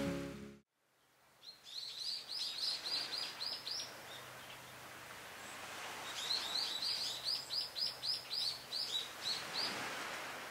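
A songbird singing two quick runs of repeated chirps, about five notes a second, each run lasting two to three seconds with a pause between them, over faint outdoor ambience.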